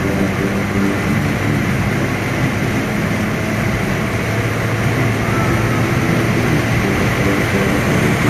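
Steady road and engine noise inside a car cabin at highway speed.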